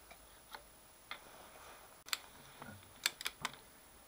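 A milling vise being tightened with a click-type torque wrench: about six short, sharp clicks at uneven intervals, the strongest about two seconds in, then a quick cluster of three.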